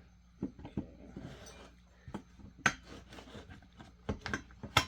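Sharp metal clicks and clinks of tools and chainsaw engine parts being handled while the piston and cylinder are reassembled, with louder knocks about two and a half seconds in and just before the end.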